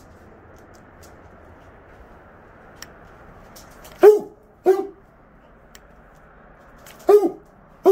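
Basset hound barking as it chases a laser-pointer dot: four short barks, each dropping in pitch at its end. Two come about halfway through, and two more come near the end.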